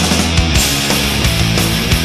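Loud rock music soundtrack with a steady drum beat, instrumental at this point.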